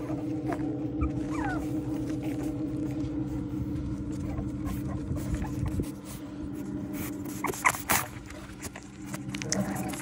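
Boston Terrier puppies whimpering with a few short, high squeaks over a steady low hum, followed by close scuffling and clicking noises in the last few seconds as a puppy nuzzles right up to the phone.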